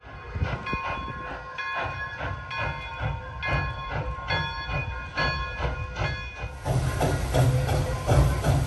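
Pere Marquette 1225, a 2-8-4 Berkshire steam locomotive, under way with its bell ringing about once a second. A little over six seconds in, the locomotive's running noise grows louder and fuller.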